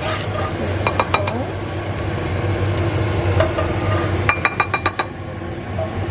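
Kitchen utensils and dishes clinking: a couple of light clinks about a second in, then a quick run of six or so near the end, over a steady low hum.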